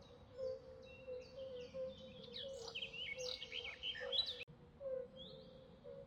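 Swamp ambience of several birds chirping in quick, repeated high notes, busiest in the middle, over a steady pulsing lower call and a low background rumble. The whole track drops out for an instant about two-thirds of the way in, then carries on.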